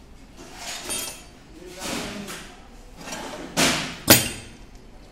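Metal rolling-shutter gearbox parts being handled on a steel base plate: a few knocks and clanks, with one sharp metal knock about four seconds in, the loudest.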